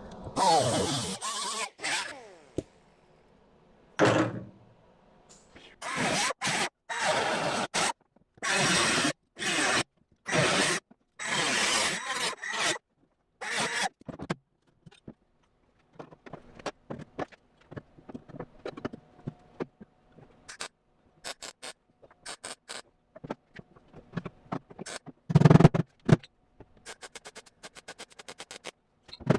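Welding on car sheet metal in a string of short bursts, each about half a second to a second long, with a falling whine near the start. After that come scattered light clicks and taps, one louder thump, and a quick run of ticks near the end.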